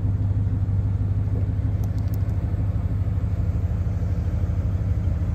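The 1978 Lincoln Town Car's 460 V8 idling with a steady low rumble.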